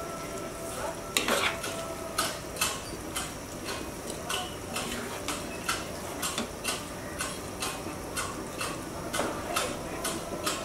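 A serving spoon clinking and scraping against a non-stick frying pan and a plate as chicken pieces in thick gravy are scooped out. The clinks come irregularly, about one or two a second, and the loudest is about a second in.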